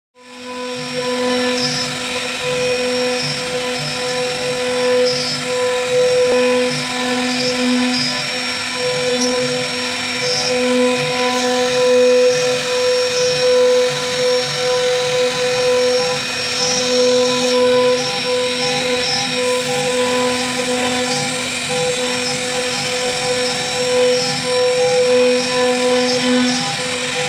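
CNC router spindle running with a steady whine while its bit carves a groove in a wooden plank, with a regular low pulsing under it.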